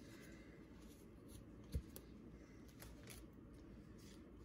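Faint crinkling of a foil Pokémon booster pack wrapper as it is handled and torn open, with a few light ticks and one soft thump a little under two seconds in.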